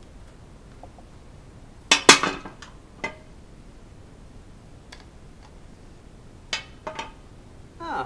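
A metal multi-tool and a fixed-blade knife handled and set down on a hard tabletop: a few separate clacks and clinks, the loudest a close pair about two seconds in, with fainter knocks later on.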